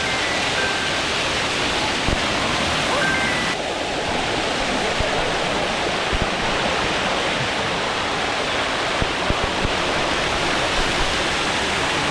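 Steady rushing of water cascading down Dunn's River Falls, with a few brief high peeps in the first few seconds.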